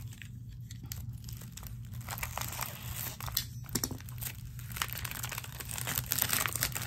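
Plastic packaging of sheet face-mask sachets crinkling and rustling as it is handled, a run of small irregular crackles that gets busier about two seconds in.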